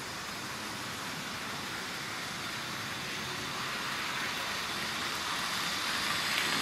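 Tri-ang Hornby 9F 'Evening Star' model steam locomotive, tender-driven, running with its coaches on the track: a steady mechanical running noise of wheels and motor that grows louder as the train draws close.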